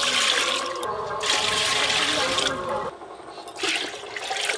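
Water poured from a steel mug into an aluminium cooking pot, splashing as it hits the pot, in three pours with short breaks between them.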